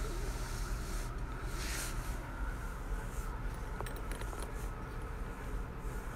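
Hands mixing raw beef steak pieces and sliced onion in a plastic bowl: soft squishing and rustling, with a few light clicks about three to four seconds in, over a steady low hum.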